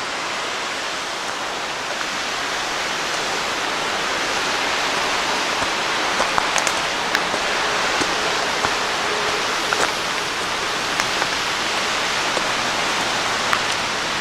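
Wild Creek Falls' waterfall and creek rushing steadily, a little louder after the first few seconds, with a few short clicks over it.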